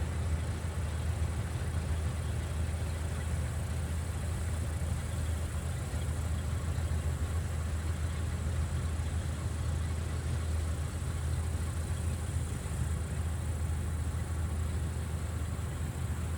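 Vistula KZB-3B combine harvester running steadily with a constant low engine hum and the noise of its machinery.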